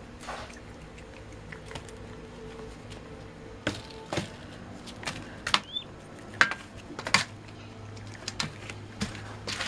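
Young peafowl pecking at its food, its beak striking the newspaper-lined cage floor and food bowl in sharp, irregular taps, a few much louder than the rest.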